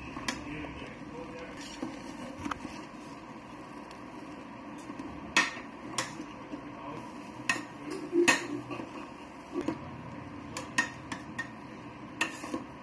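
A metal spatula scraping through fried rice and knocking against the side of a metal pot as the rice is stirred and tossed, with sharp clinks every second or so over a steady rustle.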